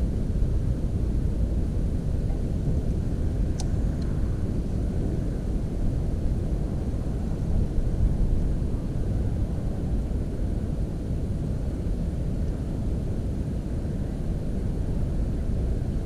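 Low, steady rumble of wind buffeting an action camera's microphone, with one faint click about three and a half seconds in.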